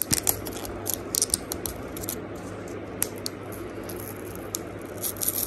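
Fingernails picking and scratching at the edge of a cardboard tarot-deck box to open its lid, giving a scatter of small clicks and scrapes over a steady low hum.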